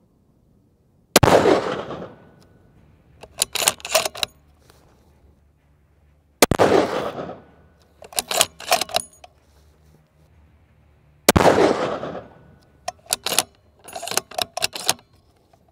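Ruger Precision Rifle in .338 Lapua Magnum firing three shots about five seconds apart, each a sharp crack with a long trailing echo. About two seconds after each shot comes a quick run of metallic clicks as the bolt is cycled to chamber the next round.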